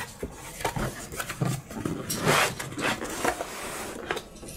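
Rubbing and scraping handling noises with a few light knocks, as the GeForce GTX 1650 graphics card is taken out of its packaging.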